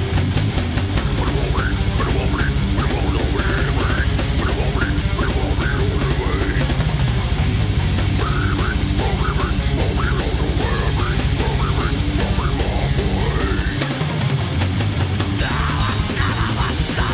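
Death metal recording: distorted electric guitars over fast, steady drums. The low end drops away briefly about fourteen seconds in, then comes back.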